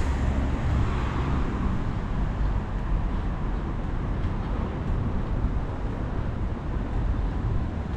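Steady road traffic noise: a low rumble of cars with a faint hiss, a little fuller in the first second or so.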